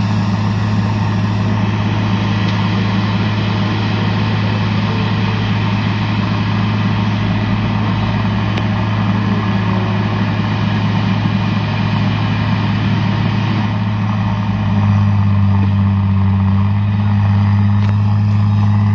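Truck diesel engine running steadily with a low, even hum; about fifteen seconds in it grows louder and slightly higher as it takes more throttle.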